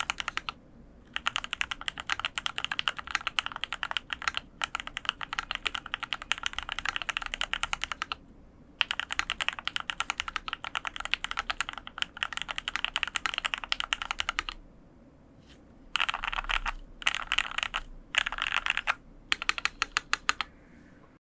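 Typing on a custom mechanical keyboard with lubed Gateron Yellow KS-3X47 linear switches in an aluminium plate with foam, under Hammerworks CRP R4 keycaps. Quick key strokes come in runs broken by a few short pauses.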